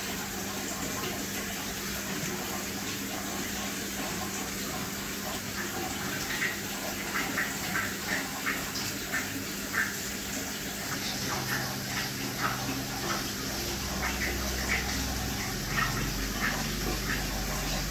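Aquarium water trickling and splashing steadily, as from a filter outflow, with many small droplet plinks and a faint steady pump hum.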